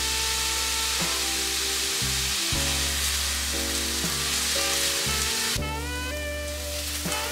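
Diced onions sizzling in a frying pan as they are stirred with a silicone spatula, over background music with steady bass notes. The sizzle fades about five and a half seconds in, leaving mostly the music.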